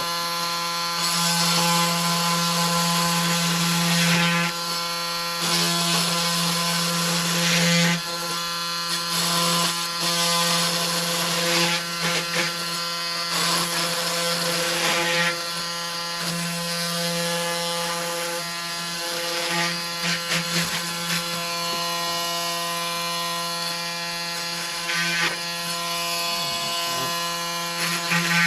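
Electric power tool with a blade cutting a humidifier pad to size: a steady motor hum with a rasping that swells and fades every few seconds as the blade bites into the pad.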